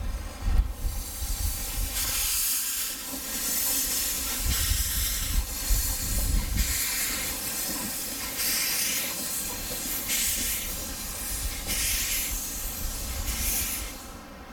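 Narrow-gauge steam tank locomotive letting off steam, a loud hiss that surges and falls back in repeated bursts a second or two apart. A low rumble sits under the first half.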